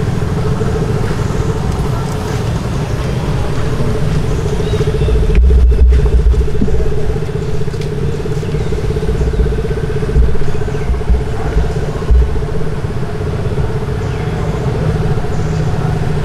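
A motor engine running steadily with a constant hum, over a heavy low rumble that swells about five seconds in and again around ten to twelve seconds.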